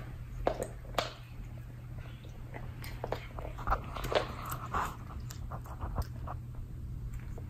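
A cat biting and chewing at a hard stick-shaped treat, making irregular small clicks and crunches.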